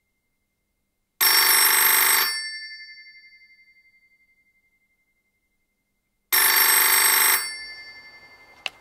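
Landline telephone ringing twice, each ring about a second long with a fading tail. A short click follows near the end.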